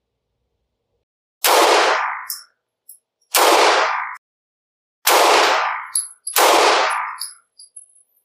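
Four shots from a Taurus TH9C 9mm compact pistol, fired one at a time about one and a half to two seconds apart, each dying away in a short ringing tail.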